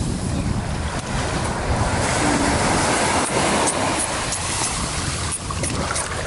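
Steady rushing noise of wind buffeting the microphone, with a few faint ticks near the end.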